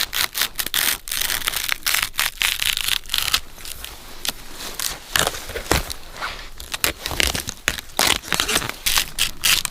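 Dry, fibrous windmill palm sheaths being torn and peeled away from the palm's top to bare the tender heart, a run of irregular crackling, ripping strokes.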